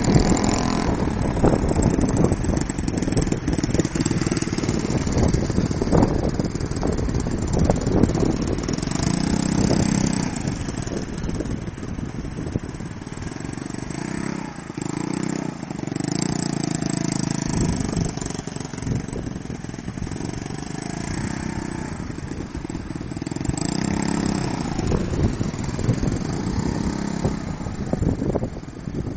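Motor scooter's small engine revving up and easing off again and again as it rides slow, tight figures. A low rumble with scattered knocks runs under it throughout.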